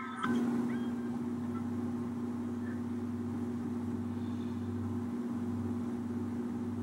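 A steady low hum with a faint hiss of room noise, starting abruptly just after the start.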